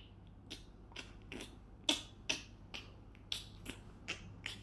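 Someone chewing and eating close to the microphone: a run of about ten short sharp mouth clicks, roughly two a second and unevenly spaced.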